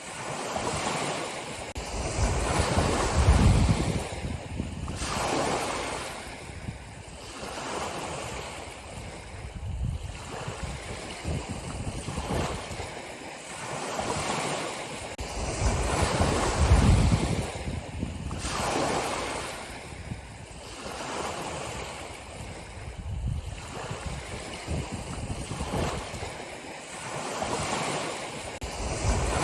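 Ocean surf: waves breaking and washing in, one after another, swelling and ebbing every few seconds, loudest about three seconds in and again a little past halfway.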